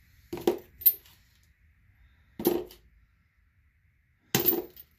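Metal hand tools clinking and clattering in three short bursts as they are rummaged through.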